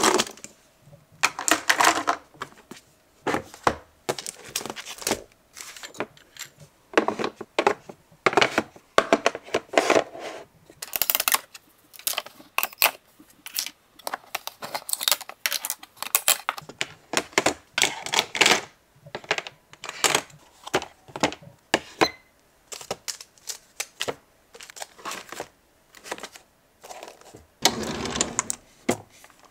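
Pens, stationery and clear MUJI plastic organizer trays being handled and set into a desk drawer: an irregular run of light clicks, clacks and rattles of plastic against plastic and the drawer bottom. Near the end a small drawer slides open.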